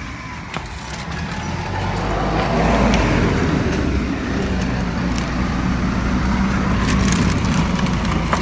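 A motor vehicle's engine running with a low hum that builds over the first few seconds and then holds steady. A few sharp clicks sound over it.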